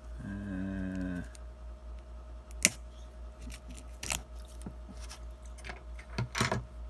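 Utility knife cutting and scraping tight shrink-wrap on a card box: scattered clicks of the blade and crackling of the plastic film, with one sharp click about two and a half seconds in. A short hummed grunt of effort in the first second.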